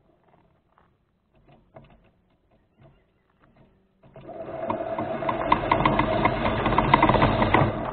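Remote-controlled rover's electric drive motor and gears start whirring about four seconds in and keep running steadily, with rapid ticking over the whine. Before that there are only faint scattered ticks.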